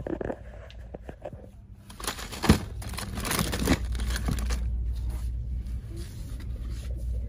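Rustling, crinkling and scattered clicks of items being handled, busiest a couple of seconds in with one sharp click, over a steady low hum.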